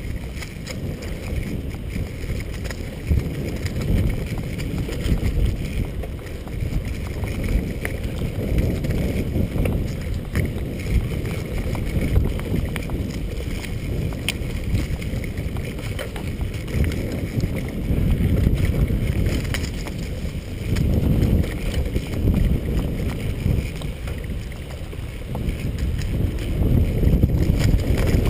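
Wind buffeting a chest-mounted action camera's microphone as a bicycle rolls over a bumpy dirt trail, with the tyres' rumble and small knocks and rattles from the bike. The rumble swells and eases, loudest near the end.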